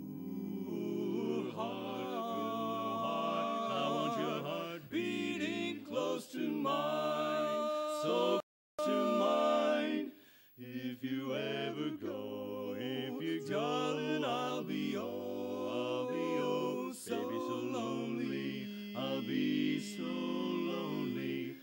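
Male barbershop quartet singing a cappella, four voices in close harmony moving through sustained chords. The sound cuts out completely for a fraction of a second about a third of the way through.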